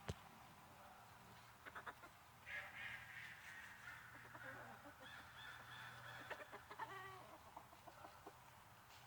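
Faint calls of farm poultry, running for a few seconds in the middle, after a sharp click at the very start.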